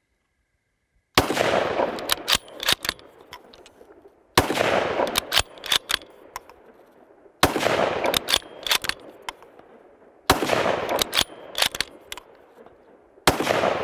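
Five rifle shots from a 6.5 Creedmoor Ruger Precision Rifle, about three seconds apart, each ringing out afterwards. After each shot comes a quick run of metallic clicks as the bolt is worked to chamber the next round.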